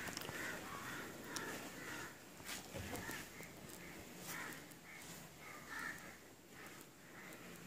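Crows cawing, faint, in short repeated calls, with a few light knocks.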